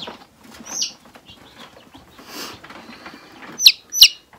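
Newly hatched chick peeping: a faint falling peep about a second in, then two loud, sharp, falling peeps near the end, with a brief rustle in between.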